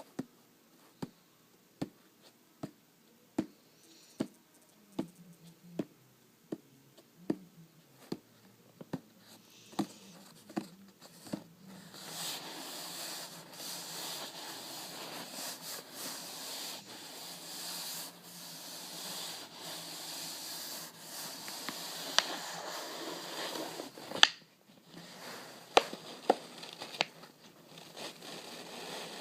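Close-up hand-made trigger sounds: steady, even tapping on an object, about one tap every second, then from about twelve seconds in a continuous rubbing and crinkling with a few sharp clicks, briefly stopping near the end.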